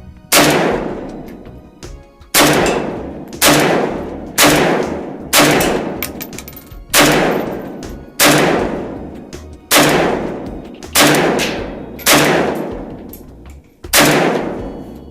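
Zastava O-PAP AK-pattern rifle in 7.62x39 firing eleven single semi-automatic shots, one to two seconds apart, each with a ringing echo tail. The rifle is cycling and feeding normally from the magazine under test.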